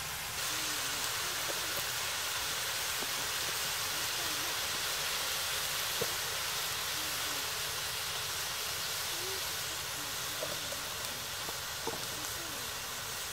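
Sliced beef sizzling in a hot wok: a steady hiss that starts about half a second in, with a sharp tick about halfway through and another near the end.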